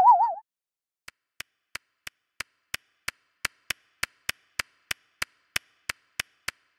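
Cartoon footstep sound effect: light, evenly spaced ticks, about three a second, as a small character walks across. A short wavering synth tone ends in the first half-second.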